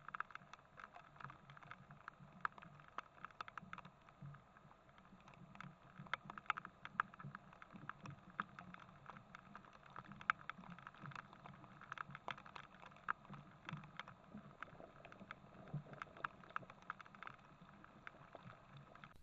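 Hailstorm: hailstones striking in dense, irregular ticks and clicks, several a second, over a faint steady patter.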